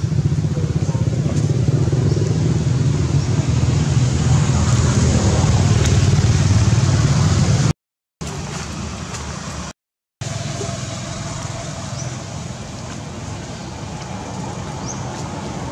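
A motor vehicle engine running close by, a steady low rumble. It cuts out twice briefly about halfway through and is quieter afterwards.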